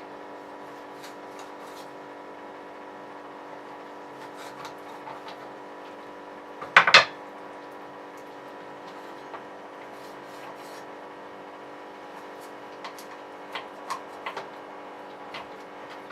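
Kitchen knife cutting through a chicken breast on a board: faint scraping and light taps, then two or three hard knocks in quick succession about seven seconds in as the blade is struck through the breastbone.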